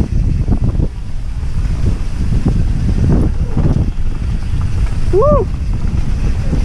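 Wind buffeting an action camera's microphone on a mountain bike ridden fast down a dirt singletrack, a steady low rumble broken by many small knocks as the bike rattles over bumps. A short squeak rises and falls once about five seconds in.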